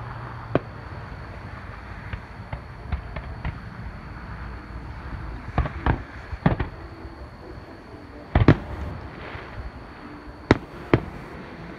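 Aerial fireworks bursting: scattered sharp bangs, a cluster of several a little past the middle, the loudest about two thirds of the way through and two more close together near the end.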